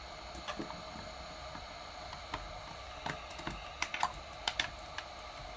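Scattered light plastic clicks and taps from a Logitech G913 TKL keyboard being handled during disassembly. They are sparse at first and come closer together in the second half.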